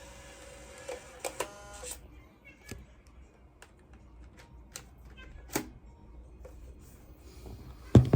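Scattered small clicks and knocks of objects being handled, with a brief squeak about a second and a half in and a louder thump near the end.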